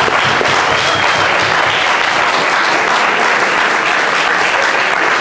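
Audience applauding, a steady dense patter of many hands clapping at the close of a speech.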